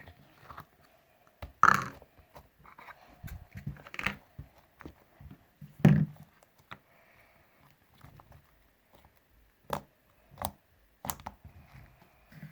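Homemade slime being squished and poked by hand for ASMR, making irregular clicks and short squelches, with a few louder pops about 2 and 6 seconds in.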